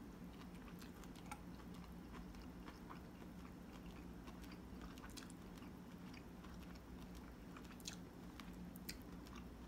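A person chewing a mouthful of shrimp and zucchini noodles: faint, irregular wet mouth clicks scattered throughout.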